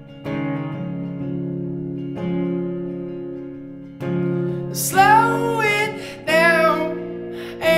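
Song with strummed acoustic guitar chords ringing out, each new chord struck about every two seconds; a singing voice comes in about five seconds in.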